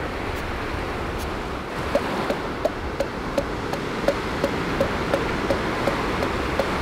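Surf breaking and washing up the beach as a steady rush, with a regular run of short knocks, about three a second, starting about two seconds in.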